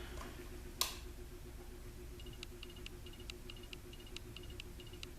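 A single sharp click about a second in, as the fan's InteliTouch control is worked to turn on the light kit. After it comes a faint steady hum, and from about two seconds in a run of short, faint, high chirps and ticks, several a second.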